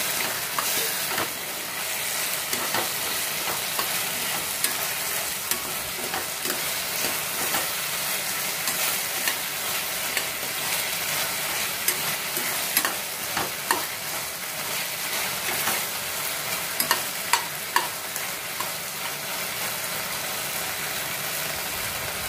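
Chicken pakoras in a thick sauce sizzling in a hot kadai while a spatula stirs and tosses them, with scattered clicks and scrapes of the spatula against the pan. The stirring stops near the end and the sizzle carries on.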